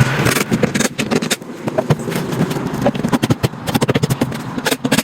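Wooden cabinet panels being handled and set in place: a rapid, irregular series of knocks and clicks with some scraping of wood on wood.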